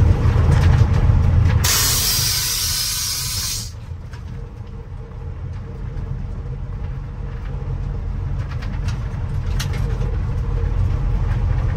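1998 Ford LT9513 dump truck's 10.5-litre inline-six diesel running as the truck drives along, heard from inside the cab. Under two seconds in, a loud hiss of air lasts about two seconds and cuts off suddenly. After it the engine drops quieter, then slowly builds again.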